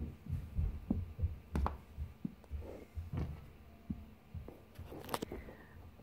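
Soft low thuds and a few sharper clicks as small toy bird figurines are set down and shifted about on a cloth-covered table.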